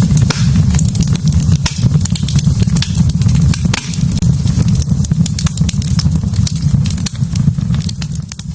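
Wood fire burning in a fireplace: a steady low rumble with frequent irregular crackles and pops of burning logs.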